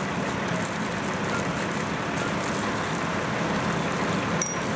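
Fire engine running steadily with its pump engaged, mixed with the continuous hiss and splatter of water spraying from a hose onto firefighters' turnout gear.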